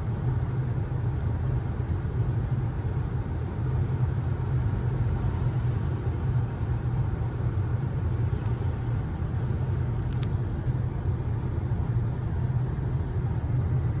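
Steady road and engine noise of a car driving along, heard from inside the cabin.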